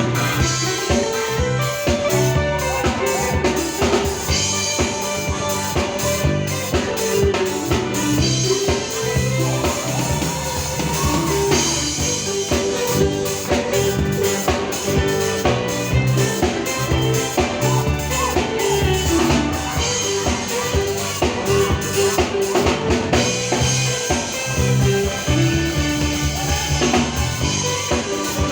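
Jive music with a steady drum-kit beat, a walking bass line and a stepping melody.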